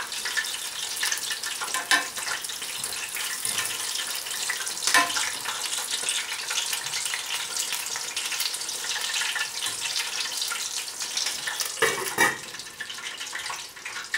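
Breaded chicken frying in hot oil in a pan: a steady crackling sizzle, with a few sharp knocks about 2, 5 and 12 seconds in. The sizzle drops off near the end.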